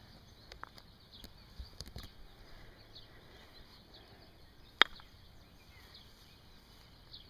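One sharp crack about five seconds in: a wooden croquet mallet strikes a ball that is touching a second ball, a croquet stroke sending both balls across the grass. A few faint knocks come before it.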